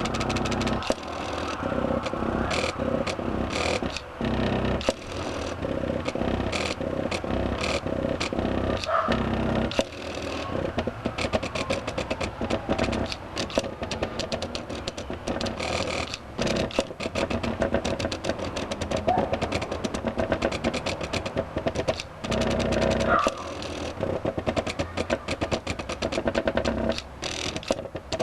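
Stepper motors of a homemade two-and-a-half-axis CNC plotter built from electronic scrap, running through G-code moves: a whining hum with rapid ticking and rattling that keeps changing pitch and stops and restarts as the axes move.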